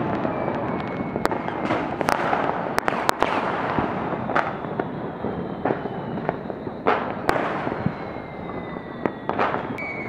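Fireworks and firecrackers going off: many sharp bangs at irregular intervals over a continuous crackle, with faint high whistles that slowly fall in pitch.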